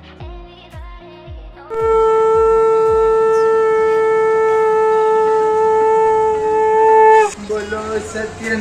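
Conch shell (shankh) blown in one long, steady note lasting about five and a half seconds, loud, falling away at the end. Before it starts, music with a steady drum beat plays.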